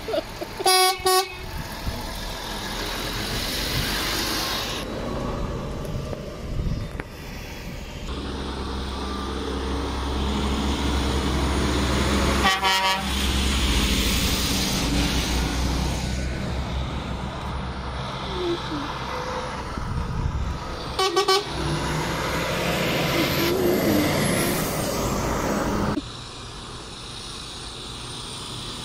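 Lorries' diesel engines running as they pull past, with short blasts on a truck horn a few times: a double toot at the start, single toots about twelve and twenty-one seconds in, and another at the very end.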